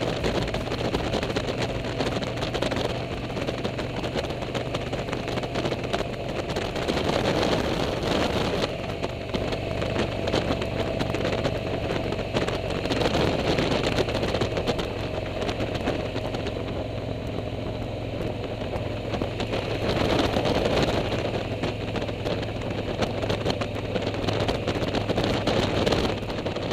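Motorcycle engine running steadily while riding at road speed, with wind rushing over the microphone.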